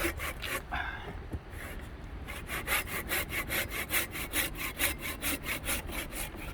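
Hand saw cutting through a thick firewood log. A few strokes, a short pause, then fast, steady back-and-forth strokes at about four a second.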